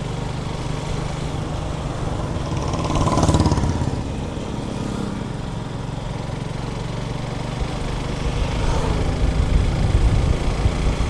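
Motorcycle engine running steadily on the move. A brief louder swell comes about three seconds in, and the low rumble grows louder and rougher near the end.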